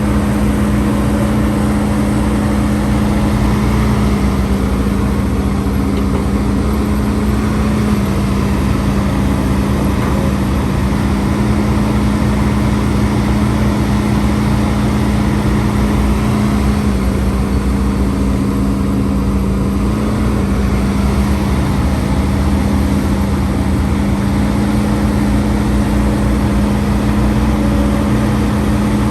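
Heavy diesel engine of a Hidromek HMK230LC excavator running steadily at working speed, its pitch dipping slightly twice as it takes load.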